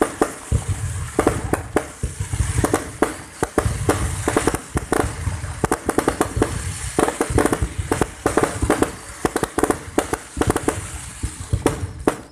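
Fireworks display going off: rapid, overlapping pops and crackles in quick succession, with repeated deep booms underneath.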